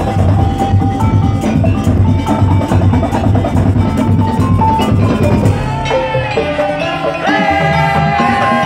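Madurese daul music played loud: drums and wooden percussion beat out a fast, steady rhythm. A pitched melody with gliding notes comes in over the percussion a little past halfway.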